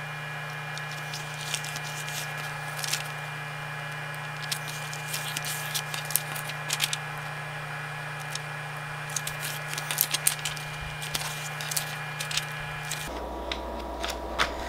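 Sheets of diamond-painting release paper and canvas cover film being handled, rustling and crackling in short irregular bursts as they are peeled back and laid on the sticky canvas, over a steady hum.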